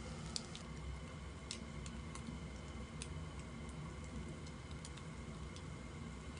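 Pork belly fat popping on a hot tabletop grill pan, with scattered sharp pops about once a second over a low steady hum.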